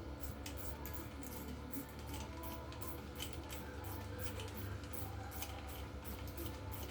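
A hand ratchet wrench clicking in quick, irregular runs as a bolt is turned on a seized engine, over a steady low hum.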